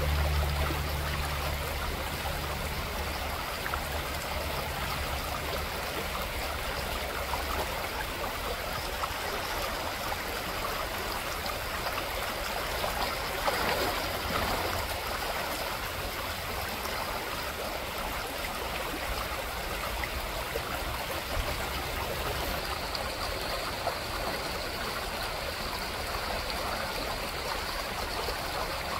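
Shallow creek water running steadily over gravel. About halfway through, a chum salmon thrashing at the surface in the shallows makes a short splash.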